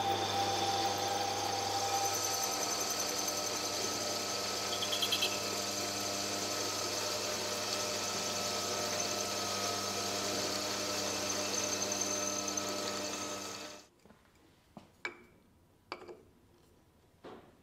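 Metal lathe running and cutting a metal ring: a steady machine whine with several held tones that stops abruptly about three-quarters of the way through. After it, a few light clicks and knocks as a wooden end cap is fitted against the metal ring in the chuck.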